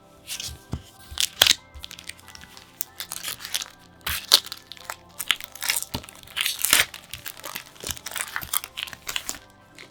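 Packaging being handled, with a dense run of sharp crackles and crunches like plastic wrap or a foil pack crinkling. Soft background music plays underneath.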